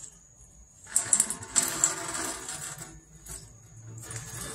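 Radiator drain petcock being twisted open by hand as coolant starts to run out: a burst of quick rattling clicks beginning about a second in and lasting under two seconds.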